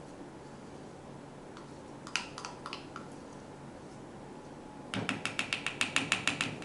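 Light clicks, then a quick run of about a dozen sharp taps, roughly eight a second, of a measuring cup against a bowl while the last of the white glue is emptied from the cup.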